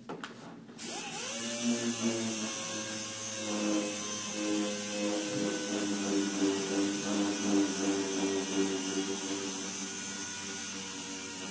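Air-powered sander with a 3M Trizact abrasive disc starting up about a second in, its pitch rising, then running steadily with an air hiss. It is damp-sanding the oxidised plastic of a headlight lens.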